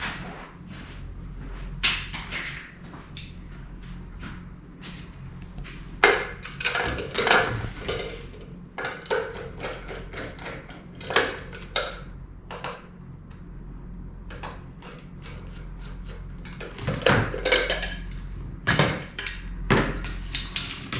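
Irregular clanks, knocks and rattles of metal parts and tools being handled on a workbench while an electrical service entrance is assembled, over a steady low hum.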